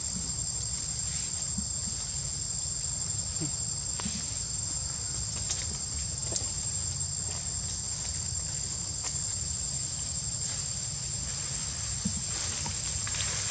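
Steady high-pitched drone of a forest insect chorus, with a low rumble beneath and a few faint clicks.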